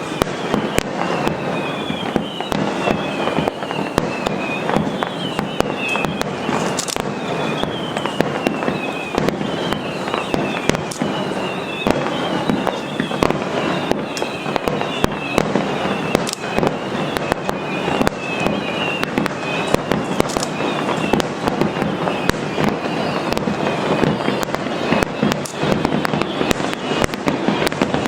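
Aerial fireworks finale barrage: a dense, continuous run of shell bursts and bangs. It is threaded with short falling whistles repeating about once a second for most of the stretch.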